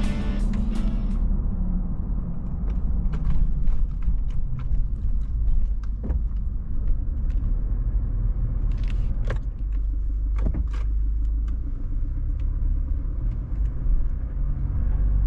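Steady low road rumble of a Toyota Land Cruiser Prado being driven, with a few scattered small clicks and rattles.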